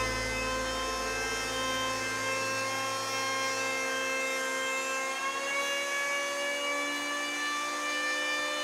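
Electric hand planer, mounted upside down as a jointer, running with a steady motor whine while a board is fed across its cutter. In the second half the whine rises slightly in pitch as the board's end passes over the blades.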